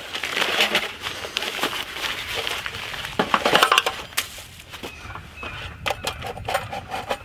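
Nylon stuff sack rustling as a Firebox Scout folding stainless-steel stove is pulled out, then the stove's metal panels clicking and clinking against each other and the table as they are handled.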